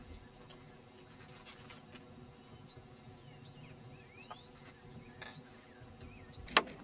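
Faint clicking and scraping of a hand tool working on an old tractor engine, with a few sharp, louder metal clicks near the end.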